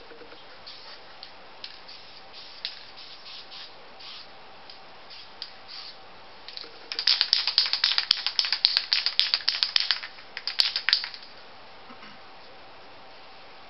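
An aerosol spray-paint can being shaken, its mixing ball rattling quickly inside for about four seconds, starting about seven seconds in.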